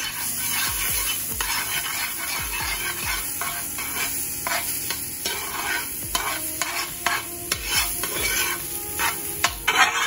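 Butter sizzling as it melts in a large metal pan, stirred with a metal spoon that scrapes and taps against the pan now and then, more often in the second half.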